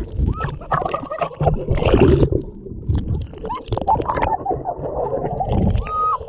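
Water sloshing and splashing close to the microphone as someone wades, with a low, uneven rumble and brief snatches of voices.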